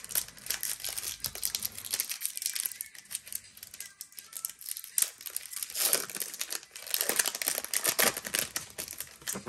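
Foil wrapper of a Pokémon trading-card booster pack being torn open and crinkled by hand, a dense crackling rustle that is heaviest in the second half.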